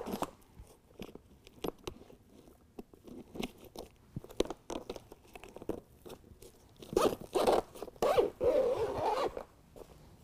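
Zipper being pulled along the seam that joins the pieces of a BedTred Ultra truck bed liner, with scattered clicks and handling noise from the mat. The loudest zip run comes from about seven to nine seconds in.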